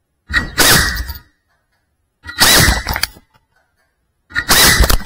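Small FPV drone's motors and propellers in three loud bursts, each about a second long and about two seconds apart, with a high whine through the propeller noise and silence between the bursts.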